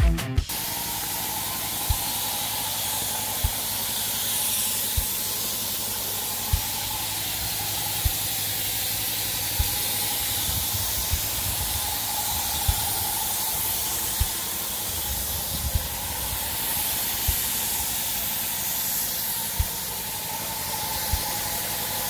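Steady spraying hiss with a few short, soft low thumps scattered through it.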